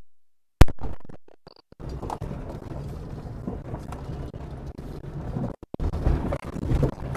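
Small SUV driving slowly over a rough dirt track, heard from inside: a steady low rumble with scattered knocks and rattles from the chassis, louder near the end. A sharp click comes just before the rumble starts.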